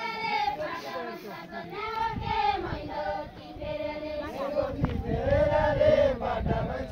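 Several voices singing a melody together, high voices prominent, with a low rumble underneath.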